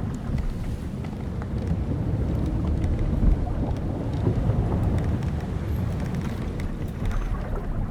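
Old wooden sailing ship at sea: a steady low rumble of wind and waves, with scattered small creaks and ticks from the hull timbers and rigging.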